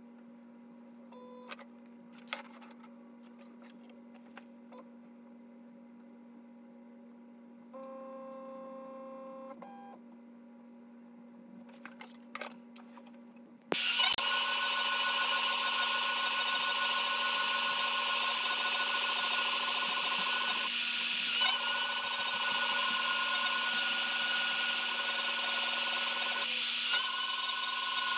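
Carbide 3D router on a Shapeoko CNC machine: a faint steady hum with a brief louder tone about eight seconds in, then about fourteen seconds in the router spindle switches on with a sudden loud, steady, high whine as the end mill cuts the wooden jig, dipping briefly twice.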